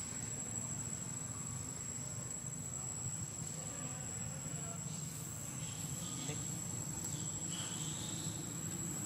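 Insects droning in the forest: a thin, steady, high-pitched tone that does not change, over a low steady background rumble. A few faint high squeaks or chirps come in the second half.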